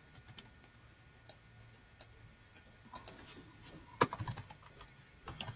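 Faint typing on a computer keyboard: scattered single keystrokes, then a quick run of keys about four seconds in and again near the end.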